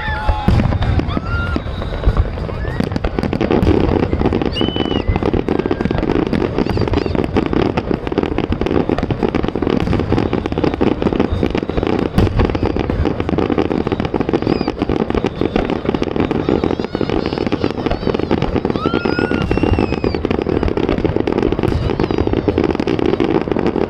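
Large fireworks display going off continuously: a dense, unbroken barrage of bangs and crackling, with a few short whistles.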